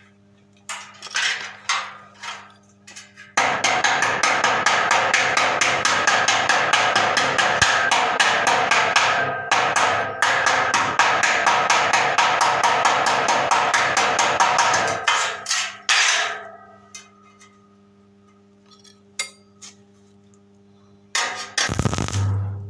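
Stick (arc) welding: the electrode's arc crackles continuously for about eleven seconds, after a few short scattered strikes at the start. A steady hum from the welding machine's transformer runs underneath, plainest when the arc is off.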